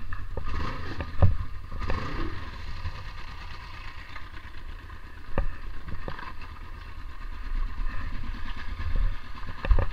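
Kawasaki KLE500's parallel-twin engine running steadily at low revs, with a few sharp knocks over it.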